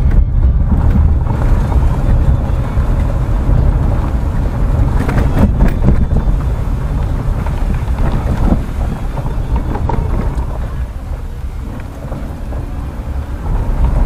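Car driving on a wet dirt road, heard from inside the cabin: a steady low rumble of tyres and engine, which eases slightly about twelve seconds in.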